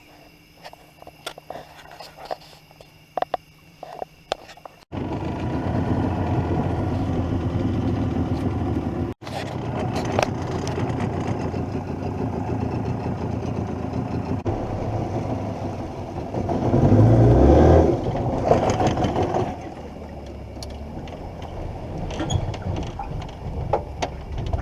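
Faint scattered clicks, then an engine starts running abruptly about five seconds in and keeps running steadily. The sound breaks off sharply a few times, gets louder briefly around seventeen seconds and settles lower near the end.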